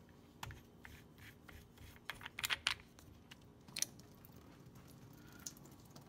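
Faint clicks and scrapes of a kitchen faucet's pull-down spray head being handled: a few scattered sharp clicks, with a quick run of louder ones about two to three seconds in.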